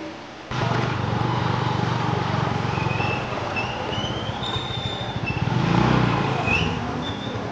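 Old motorcycle engine running with a low, even pulsing, swelling in loudness about five seconds in, with a few short high chirps over it.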